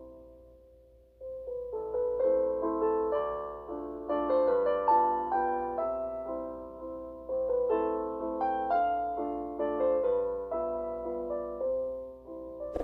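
Background piano music: a gentle melody of struck notes that ring and fade, resuming after a brief lull about a second in.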